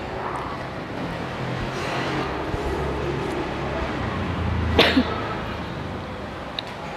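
Low rumbling handling noise on a clip-on microphone as a boy moves and handles a handheld microphone, with one short sharp burst about five seconds in.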